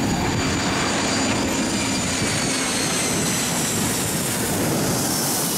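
Four-engined Airbus A340 jetliner passing low overhead on final approach: a steady rush of jet engine noise with thin high whines that slowly fall in pitch, the hiss growing stronger near the end as it comes overhead.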